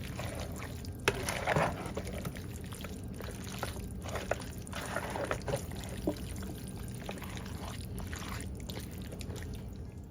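Dressed pasta salad being stirred in a bowl: a wet squelching and shuffling of rigatoni and vegetables coated in Italian dressing, with a few sharp clicks, the loudest about a second in.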